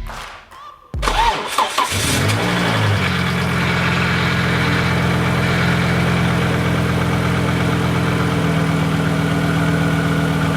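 Volvo 850's 2.5-litre 20-valve inline five-cylinder engine started for the first time after a new timing belt, water pump and tensioners. It cranks briefly, catches about two seconds in, flares, then settles into a steady idle.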